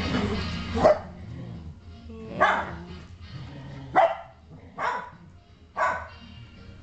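A five-week-old sheltie puppy barking: five short, high yips about a second apart.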